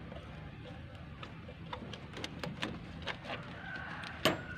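Scattered light clicks and taps of hands handling wiring and small parts in a car's engine bay, with one sharper click about four seconds in.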